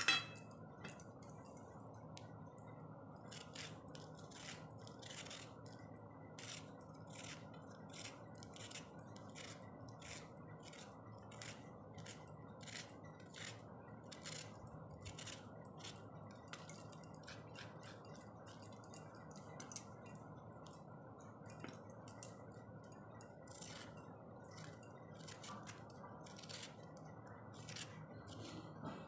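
A small blade scraping the ridged skin off bitter gourds (karela): faint, quick, irregular scraping strokes, a few a second.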